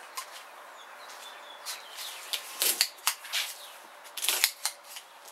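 Safety box cutter slicing through the packing tape along the top seam of a cardboard box: a run of short scraping strokes and clicks, the loudest about two and a half and four and a half seconds in.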